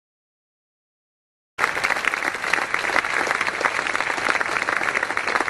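Applause: many hands clapping, starting suddenly after about a second and a half of silence and going on steadily.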